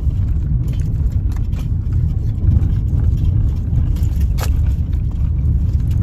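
Steady low rumble of a moving car's engine and tyres on the road, heard inside the cabin. A brief sharp sound about four and a half seconds in.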